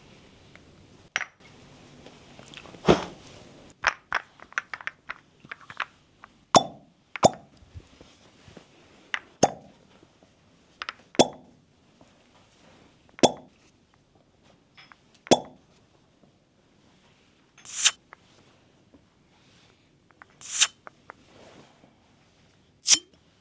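Copper cupping cups popping against skin, about a dozen sharp pops a second or two apart, as the suction seals or breaks. A few longer, breathy bursts come in the later part.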